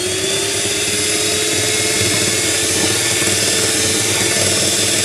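Electric hand mixer running steadily, its twin beaters whipping an egg-based cake batter while carrot purée is folded in. The motor note rises a little in the first couple of seconds, then holds steady.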